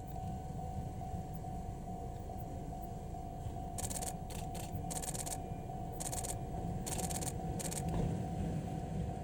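Model train running on the layout: a steady low rumble with a constant motor whine. About four seconds in, several short hissing bursts come and go.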